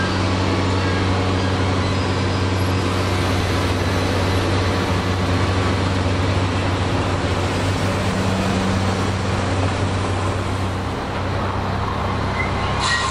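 Steady low hum of idling diesel construction equipment, with street traffic going by. A short knock near the end.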